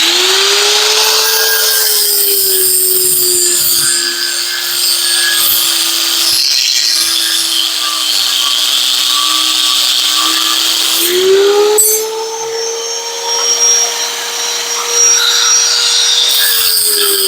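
Angle grinder with an abrasive cutoff wheel cutting through rebar, with a steady high whine and a harsh grinding hiss. The motor's pitch sags as the wheel bites into the steel. About 11 seconds in it speeds back up as the cut eases, then bogs down again near the end as the next cut starts.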